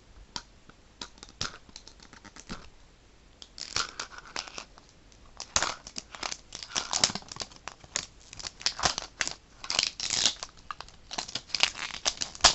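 Plastic wrapping being torn and crinkled off a Mini Brands capsule ball. A few light rustles and clicks at first, then, from about three and a half seconds in, dense, irregular tearing and crumpling.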